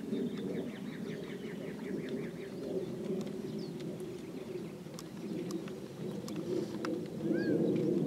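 Wild birds calling over a steady low outdoor rumble: a quick run of chirps near the start and a short rising-and-falling whistle near the end, with a few faint clicks in between.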